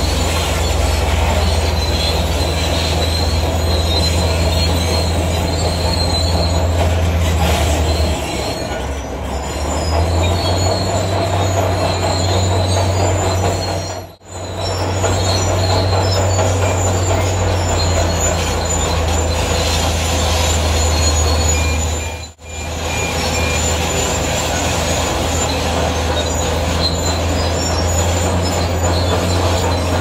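Zoomlion crawler bulldozer working gravel: a steady low diesel engine drone, with the steel tracks squealing high above it on and off. The sound cuts out briefly twice, about halfway and about three quarters of the way through.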